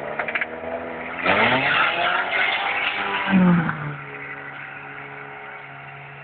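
Off-road buggy's engine revving hard under load as it climbs a steep bank. The pitch rises, then falls away after about three and a half seconds and settles to a steady, lower running.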